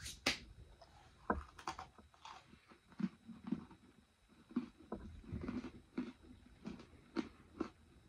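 Close-up chewing of a freeze-dried strawberry swirl cheesecake bite, with faint crunches as the chalky bite breaks apart, about two chews a second. A couple of sharp clicks right at the start.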